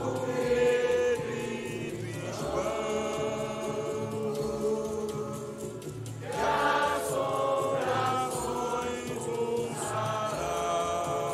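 A crowd of mourners singing a slow, chant-like procession song together, with long held notes, louder at the start and again from about six seconds in.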